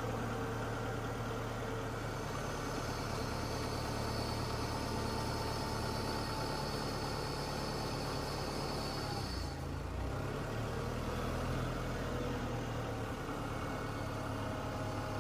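An engine idling steadily, with a brief change in its note about nine and a half seconds in.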